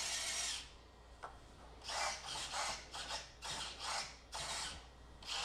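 Hobby servos and 3D-printed plastic utility arms of an R2-D2 replica, giving short bursts of whirring and scraping as the arms swing in and out of the body, with one click about a second in.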